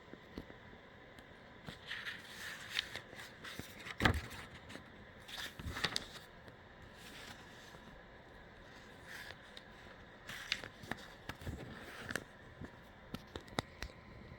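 Paper picture-book pages being handled and turned: quiet scattered rustles and scrapes with small clicks, the loudest about four and six seconds in.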